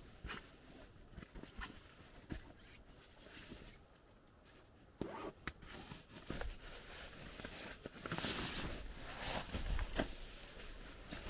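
Rustling and scattered clicks of gear being handled, growing louder for a couple of seconds near the end.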